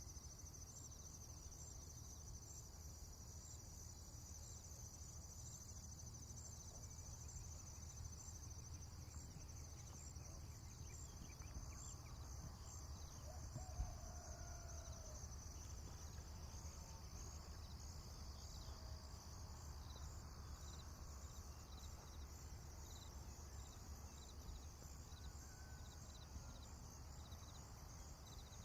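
Faint farm ambience of insects, crickets chirring steadily in a high-pitched, evenly pulsing trill over a low rumble. A few faint distant bird calls come near the middle, and there is a single brief knock about 14 seconds in.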